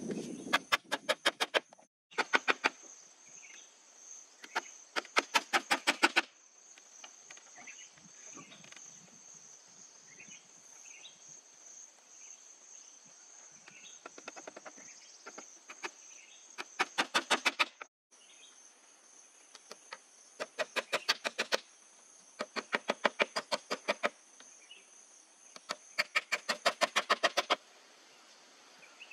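Insects calling: a steady high-pitched drone throughout, with repeated one- to two-second bursts of fast, evenly spaced clicking pulses, about ten a second.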